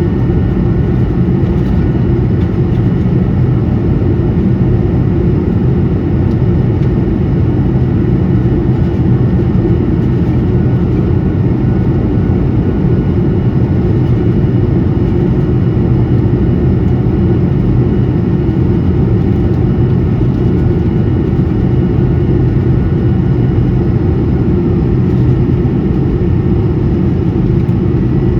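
Steady engine and airflow noise heard inside the cabin of an Airbus A220 in flight from its Pratt & Whitney PW1500G geared turbofans. It is a deep, even rush with a few faint steady whining tones above it and no change in level.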